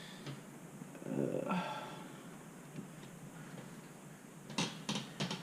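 A man's short grunt of effort, a voiced exhale, about a second in, then a few light clicks near the end.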